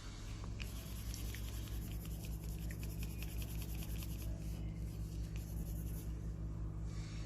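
Colouring pen scratching back and forth on paper in quick, rapid strokes, busiest from about half a second to four seconds in and again briefly around five to six seconds, over a steady low hum.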